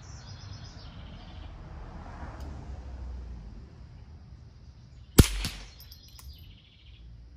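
A single shot from a Ruger 10/22 rifle firing CCI Quiet-22 subsonic .22 LR ammunition, about five seconds in: one short, sharp crack with a brief ring-out. Birds chirp in the background.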